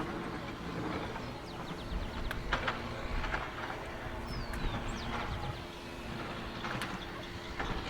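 Outdoor soundscape of a semi-urban farming area: a steady low rumble of distant traffic with a steady hum, scattered faint clicks, and a short falling bird call about four and a half seconds in.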